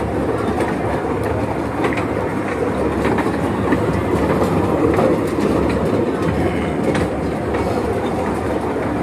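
Children's mini train ride rolling around its small circular steel track: a steady rumble of the wheels on the rails, with light, irregular clicks.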